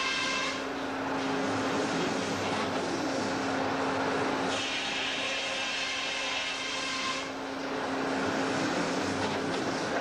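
Portable sawmill running: a steady engine drone, with a higher hiss over it that drops away about half a second in and comes back for a few seconds in the middle.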